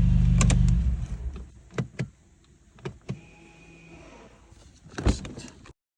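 The 1.6-litre petrol engine of a Mercedes-Benz A-Class idling steadily, then switched off about a second in. A few clicks and knocks follow, with a louder knock near the end.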